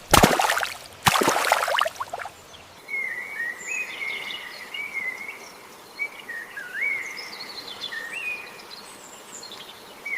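Two loud harsh bursts in the first two seconds, then a songbird singing short whistled phrases that rise and fall in pitch, repeated over a faint outdoor background.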